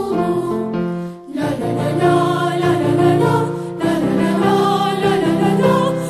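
School anthem, a march, sung with instrumental accompaniment, with a short break between phrases about a second in.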